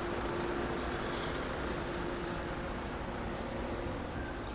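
Steady mechanical hum of a running engine or machine, one even tone over a constant rushing background, easing slightly midway.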